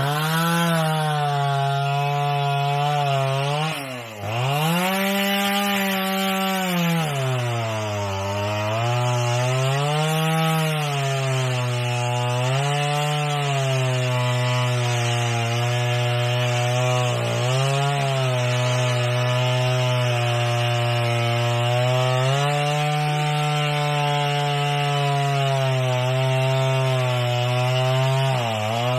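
Two-stroke chainsaw cutting through a coconut palm trunk at high revs, its engine note sagging and recovering as the chain bites into the wood. About four seconds in the throttle drops briefly and then comes back up.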